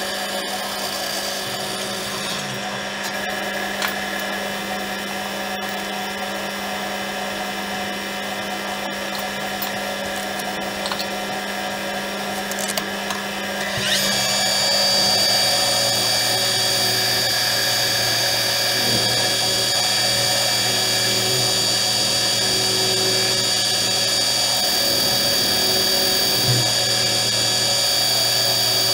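Metal lathe running, turning a steel sleeve held in the chuck: a steady mechanical whine made of several constant tones. About halfway through it jumps louder, with a stronger high whine.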